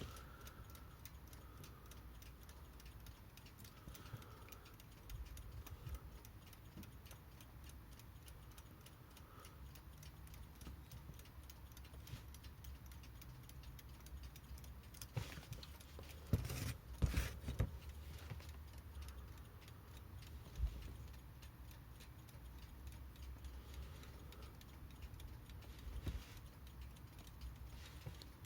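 Haller Beatall alarm clock movement ticking faintly and steadily as its balance runs after oiling. It is running weakly, with low balance amplitude, which the owner thinks may come from worn balance cups. A few louder knocks of handling come in around the middle and later.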